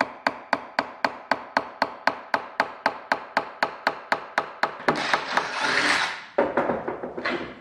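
Small ball-peen hammer tapping an aluminium rib flange against a wooden form block in a vise, even sharp strikes about three a second, flattening out the scalloped edge of the flange. About five seconds in the tapping stops and a louder rushing noise follows for about a second, then a few irregular knocks.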